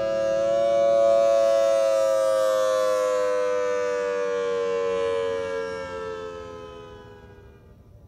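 Federal Signal Thunderbolt 1000T rotating outdoor warning siren winding down: its loud wail slowly falls in pitch and fades out over the last few seconds.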